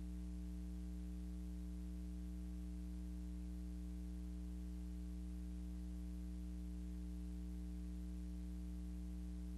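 Steady low electrical hum with several overtones and a faint hiss. It is the soundtrack's noise floor on a silent film, with no sound from the scene itself.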